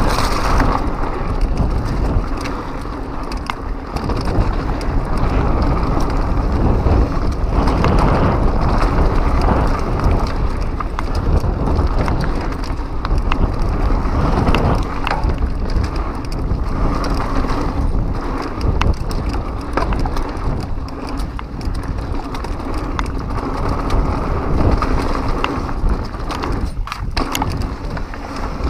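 Pivot Mach 6 full-suspension mountain bike descending a dirt trail at speed: a steady rumble of tyres over the dirt and the bike rattling, with frequent small knocks from bumps and wind on the microphone.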